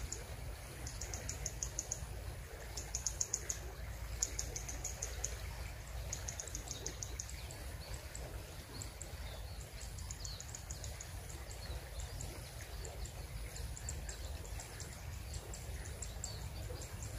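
High, rapid chirping in short trains of quick pulses, repeated about once a second, over a steady low rumble.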